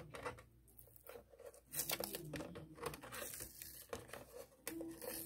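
Black tape being picked at and peeled off the plastic battery cover of a clock radio: faint tearing and crinkling with scattered small clicks.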